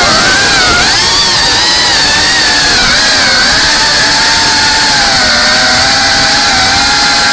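GEPRC Cinelog 35 cinewhoop drone's brushless motors and ducted 3.5-inch propellers whining in flight, the pitch wavering up and down with the throttle over a steady hiss.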